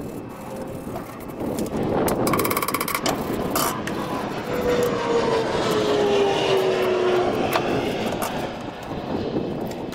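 Stick-welding arc crackling and hissing as a 7018 cap pass is run on a steel pipe at a deck penetration. Through the middle, a separate tone slides slowly down in pitch.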